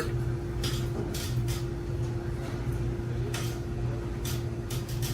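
Steady machine hum of restaurant kitchen equipment, with one constant tone, and a few short bursts of higher noise scattered through it.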